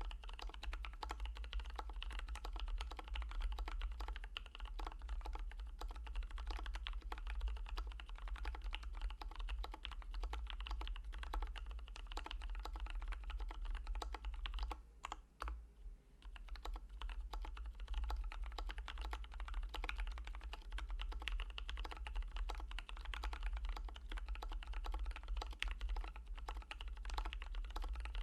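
Steady typing on a Sp-Star Lucifer mechanical keyboard with Bsun Holy Panda tactile switches lubed with Krytox 205g0 and DCP Mitocorn keycaps. The typing pauses briefly about halfway through, and a steady low hum runs underneath.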